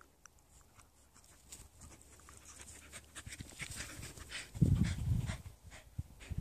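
Dogs panting during rough play, with faint quick rustles. A louder low, muffled rumble comes about four and a half seconds in.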